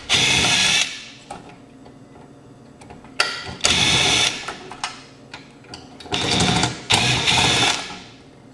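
Electric drill-driver with a Phillips bit running in four short bursts as it backs screws out of an amplifier heatsink; its motor whines for under a second each time.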